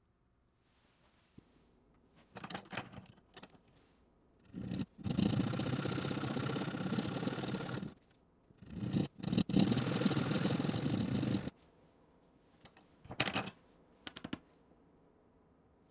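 A small power tool cutting a slot into a small plywood block clamped in a vise, running steadily in two passes of about three seconds each with a short break between. Clicks and knocks before and after as the block is handled in the vise.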